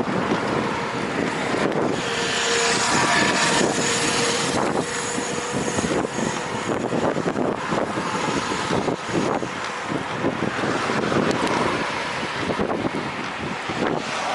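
Wind buffeting the microphone on a moving Cinelli road bike, with a repeated creaking (ギシギシ) from the bike running through it. The creak is an unexplained fault noise that the rider is trying to trace.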